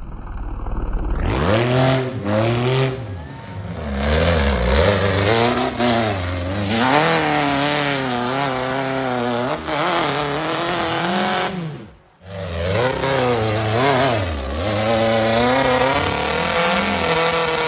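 Off-road hill-climb buggy engine revving hard, its pitch rising and falling again and again as the two-wheel-drive buggy claws up a steep dirt hill. The sound drops out briefly about two-thirds of the way through, then the revving picks up again.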